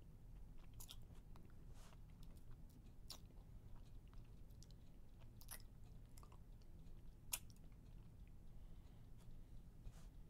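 Near silence: a faint steady low hum with scattered faint clicks, the sharpest about seven seconds in.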